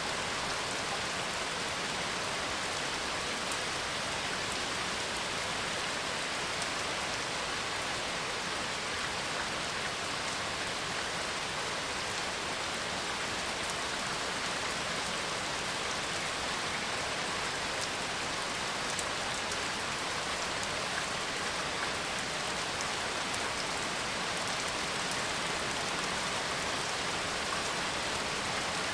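Steady heavy rain, an even hiss of rainfall with no thunder.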